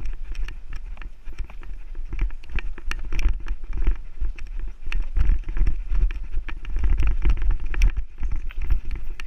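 Mountain bike riding fast down rooty dirt singletrack: the tyres running over dirt and roots, and the bike rattling with frequent sharp knocks and clicks over a heavy low rumble.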